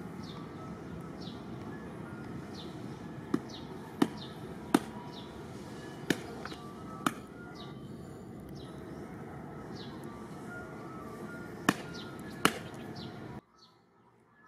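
Outdoor ambience with a short, high, falling chirp repeating about once a second, likely a bird, over a steady hiss. Several sharp clicks or knocks stand out as the loudest sounds, and everything drops away abruptly near the end.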